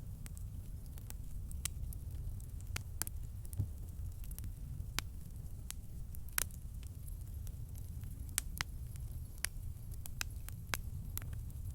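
Wood campfire burning: a steady low rumble with sharp, irregular crackles and pops, about one or two a second.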